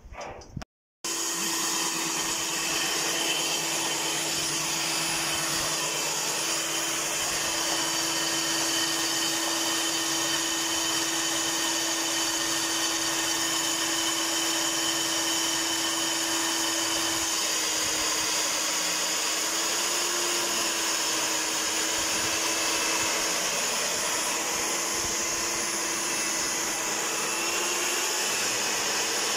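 Electric diamond core drill on its rig stand running steadily, its water-cooled core bit cutting into concrete. The motor's steady whine comes in abruptly about a second in and holds one pitch, with a slight wobble about twenty seconds in.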